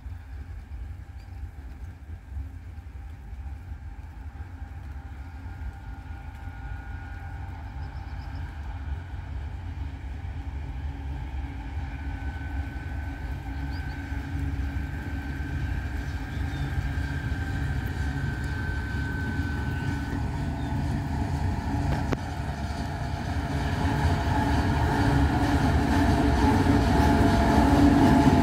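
A 2TE116 twin-section diesel-electric freight locomotive, with its two 16-cylinder diesel engines running, approaching and growing steadily louder until it reaches the listener near the end. A steady low engine drone carries a high whine for several seconds in the middle.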